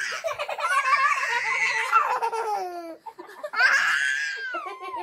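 Two young girls laughing hard in high-pitched peals, with a brief pause about three seconds in before another long shriek of laughter.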